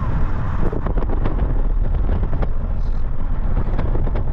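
A vehicle driving: a steady low rumble of engine and road noise, with scattered small clicks and knocks.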